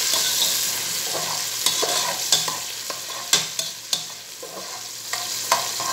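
Chopped onions sizzling in oil and a little water in a metal pot while a perforated metal skimmer stirs them, scraping and clicking against the pot several times. The sizzle eases off after the first second or two.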